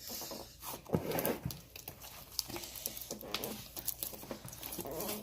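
Sticky slime being squished and pulled apart in the hands, a run of irregular wet clicks and crackles.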